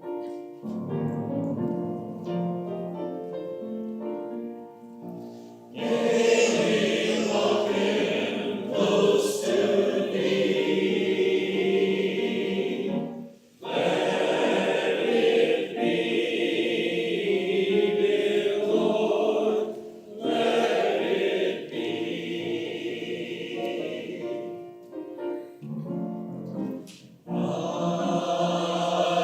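A worship song or hymn: about six seconds of keyboard playing, then a group of voices singing in phrases over the accompaniment, with short breaths between lines.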